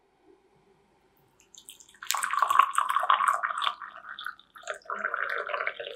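Hot water poured in a thin stream into a ceramic mug, starting about two seconds in and dipping briefly before running on.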